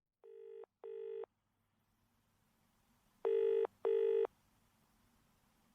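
Telephone ringing in the British double-ring pattern: two rings of two short buzzes each, about three seconds apart, the first ring quieter as it fades in.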